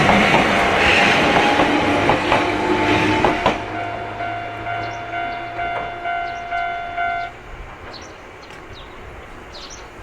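Train passing over a level crossing, wheels clattering over the rails, its noise cutting away about three and a half seconds in. The crossing's warning bell keeps clanging in a steady rhythm, a little under twice a second, and stops about seven seconds in.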